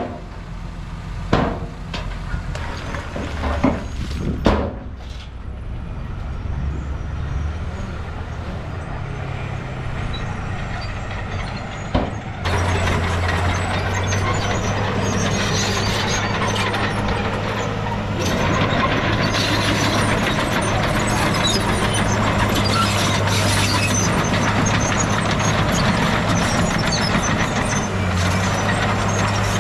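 Heavy diesel earthmoving machinery running. A few sharp knocks and clanks come over a low-running engine in the first five seconds. About twelve seconds in, a louder diesel engine takes over under load, with a steady low drone and a dense clatter on top.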